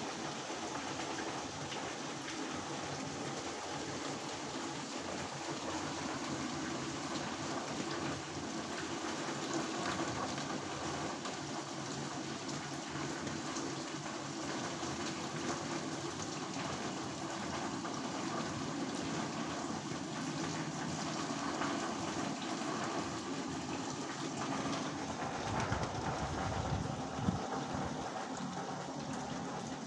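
Steady rain falling, an even hiss, with a faint steady low drone underneath. Near the end comes a brief low rumble and a single sharp knock.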